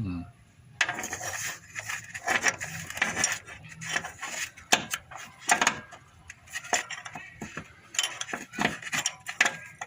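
Metal hand tools, a ring spanner and a cut-down Allen key, clinking and scraping against the belt tensioner in an engine bay while the tensioner bolt is tightened: a run of irregular sharp metallic clicks and knocks.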